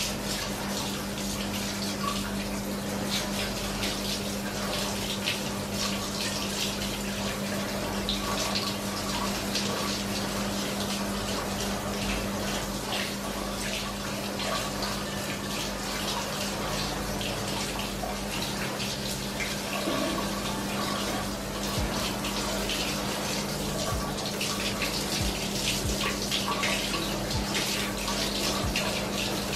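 Water spraying from a handheld shower hose onto a plastic split-AC air filter, rinsing the dust out and splashing onto a tiled floor and into the floor drain. It is a steady hiss and splatter throughout, with a faint steady low hum underneath.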